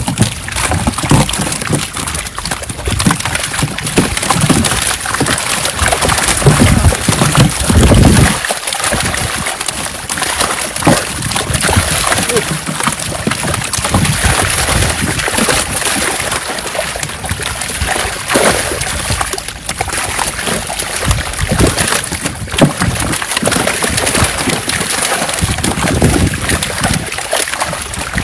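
Netted fish thrashing and splashing in shallow water, a continuous wet flapping full of quick slaps, as they are thrown by hand onto a pile of fish in a wooden boat.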